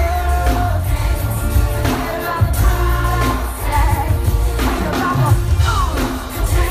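Live pop song: a woman singing lead into a microphone over a band with drums, bass and keyboards, played loud.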